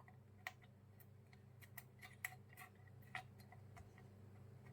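Faint, irregular small clicks and taps of tools on a circuit board as a burnt resistor is desoldered and pulled out, over a low steady hum.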